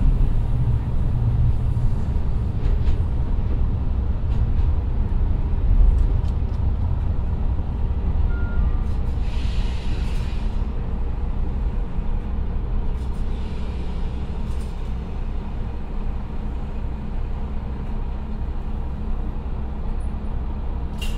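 JR Kyushu KiHa 125 diesel railcar heard from inside the cabin, slowing to a stop at a station: a low rumble of the DMF13HZ diesel engine and running gear that eases off gradually. Two short hisses of compressed air come about ten and about thirteen seconds in.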